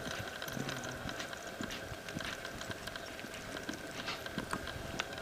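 Quarter Horse gelding loping across a soft dirt arena: a run of dull hoofbeats on the dirt, over a faint steady tone.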